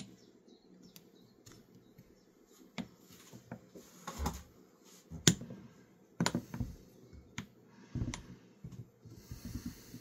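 Steel gears of a BMW S1000RR motorcycle gearbox, out of its case, clicking and clacking as they are turned and slid along their shafts by hand. The clicks come irregularly, the sharpest about five seconds in.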